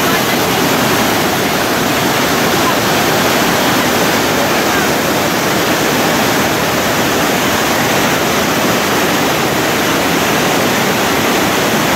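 Thi Lo Su waterfall: a loud, steady rush of falling water that never lets up.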